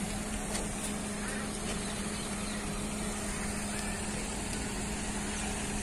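Steady outdoor street ambience: a constant low hum, like distant traffic or an idling engine, under an even wash of noise, with a few faint high chirps.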